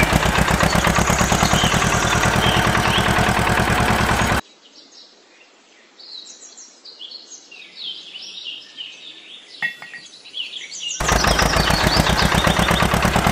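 Miniature diesel engine driving a small water pump, running fast with a rapid, steady putter. It cuts off abruptly about four seconds in, leaving birds chirping, and starts up again about eleven seconds in.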